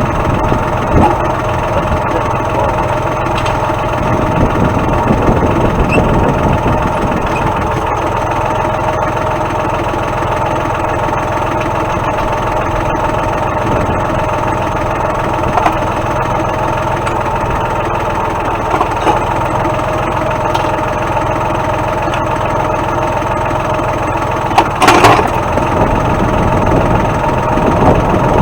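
Tractor engine idling steadily, with a few light knocks and a brief loud screech near the end.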